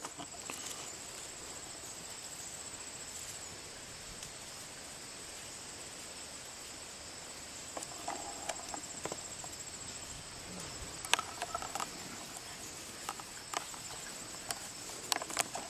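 Steady high-pitched insect chorus with a fine, even pulsing. From about halfway in, scattered short rustles and clicks sound over it.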